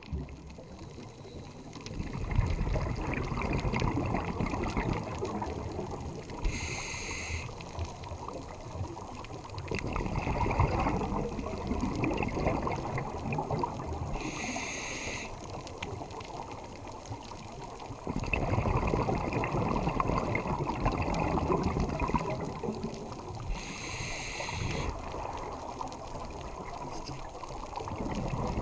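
Scuba regulator breathing heard underwater: three slow breaths, each a short hiss of inhaled air followed by a longer, louder bubbling rush of exhaled air.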